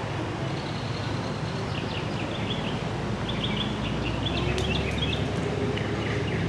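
A train's steady low rumble, with small birds chirping over it from about two to five seconds in.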